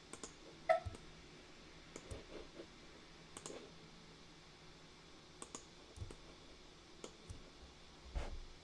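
Computer mouse clicking at irregular intervals, about a dozen sharp clicks, the loudest a little under a second in, with a duller knock near the end.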